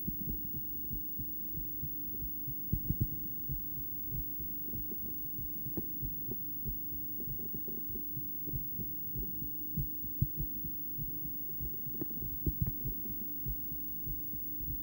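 A woman's heartbeat as sounded during a cardiac ultrasound scan: repeated low thumps over a steady low hum, with a few sharper clicks.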